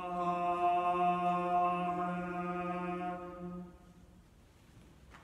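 A man's voice chanting a long 'Amen' on a single steady note, the response that closes a sung collect. It is held for about three and a half seconds and then stops.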